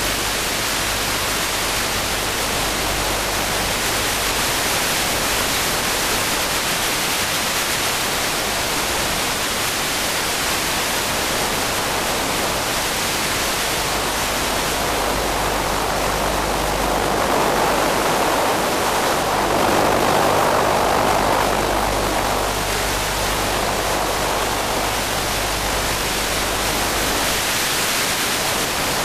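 A steady rushing hiss with a faint low hum on the audio of an FPV model airplane in flight. It swells louder for a few seconds past the middle.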